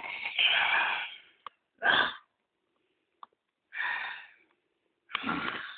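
A person's voice making hoarse, breathy monster noises for the Lego zombies and skeletons. There is one long burst, then three shorter ones spread about a second or two apart.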